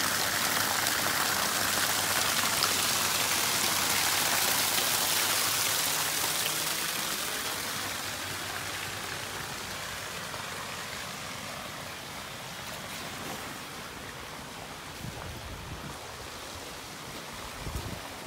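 Water gushing from an outlet pipe on a house wall and splashing into shallow floodwater. The steady rush fades gradually over the second half.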